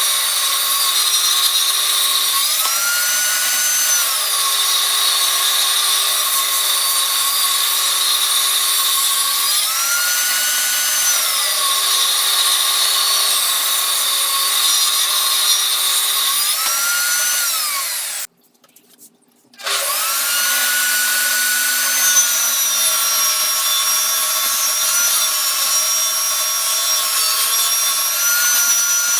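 Electric power tool running and cutting wood, its motor tone rising in pitch for a second or so and falling back about every seven seconds. It stops briefly about two-thirds through, then runs on steadily.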